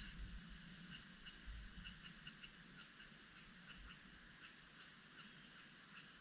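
Faint, short high chips of small songbirds, a few a second, over a steady hiss, with a brief low rumble at the start.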